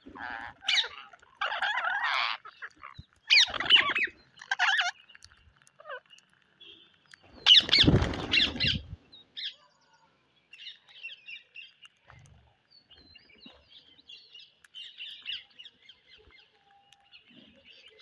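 Rose-ringed parakeets calling, loud bursts of squawks over the first half with the loudest about eight seconds in, then fainter scattered chirps.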